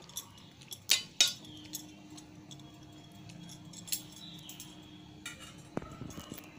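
Metal spoon clinking against a stainless steel bowl while stirring a watery mix of peas and chopped vegetables: a few sharp clinks in the first second and a half, the loudest about a second in, then only occasional lighter taps.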